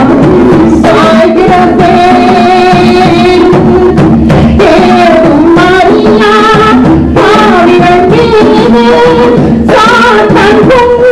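Loud live music from a Tamil worship song: a melody over a drum beat, recorded so hot that it is overloaded.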